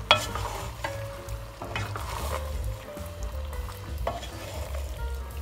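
Wooden spoon stirring pasta shells and ground beef as they fry in a coated pot, with a light sizzle and a few knocks of the spoon against the pot, the sharpest right at the start.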